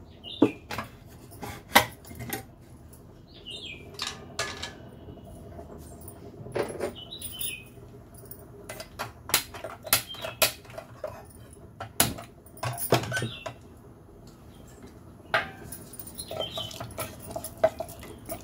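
Scattered metal clinks and knocks as a stainless-steel pressure cooker is opened and its lid handled, then a wooden spatula stirring and scraping the curry in the pot near the end.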